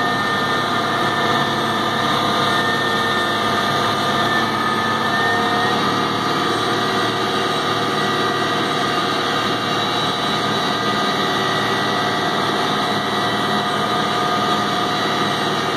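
Pushback tug's engine running steadily under load, heard from inside the tug cab, with several steady whining tones over it that shift slightly in pitch about five seconds in.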